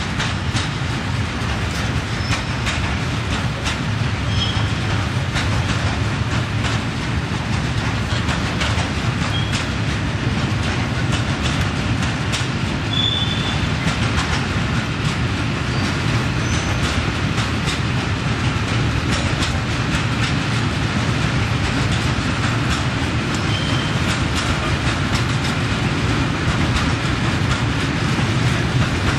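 Freight train of covered hopper wagons rolling past on departure, wheels clicking over rail joints and points, with a few short high wheel squeals.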